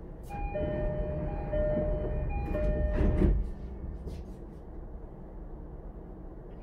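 Door-closing chime of a JR East E233 series 1000 commuter train: a high-then-low two-tone chime sounding three times, followed about three seconds in by the doors sliding shut with a thud. Afterwards the stopped car's equipment hums steadily.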